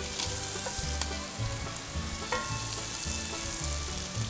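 Breakfast sausage and thinly sliced onion sizzling in a pan on a camp stove as they are stirred and broken up. A utensil clicks against the pan a few times.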